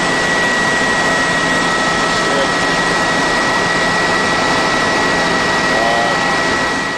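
Helicopter noise heard from inside the aircraft: a steady, loud turbine-and-rotor roar with a constant high-pitched whine, and faint voice fragments about two and six seconds in.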